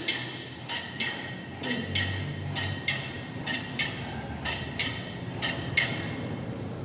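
Cable machine clinking metallically as biceps curls are done on it, a series of sharp clicks with a short ring, roughly one or two a second.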